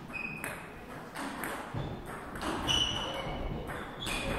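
Table tennis ball clicking again and again on the table and the bats during a rally, with a few short high-pitched squeaks among the clicks.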